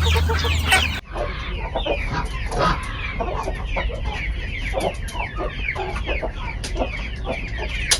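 Chickens clucking and calling, many short overlapping calls, a lot of them high and falling in pitch. A low hum underneath stops abruptly about a second in.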